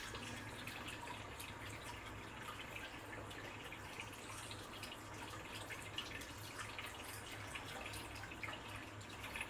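Water dripping and trickling, with scattered small ticks over a steady low hum.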